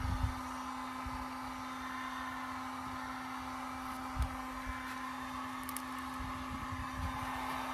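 Electric heat gun running steadily, a constant fan-motor hum, heating the adhesive behind a stick-on badge. A faint knock comes about four seconds in.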